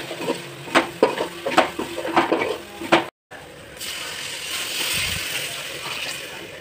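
A metal spoon scraping and clinking against a metal pot as ground spices are stirred into frying onions and tomatoes. About three seconds in, water is poured into the hot pot with a steady rushing hiss.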